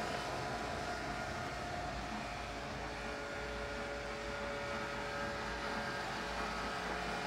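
Steady mechanical hum of a wall-mounted air conditioner running, an even drone with a few faint steady tones and no changes.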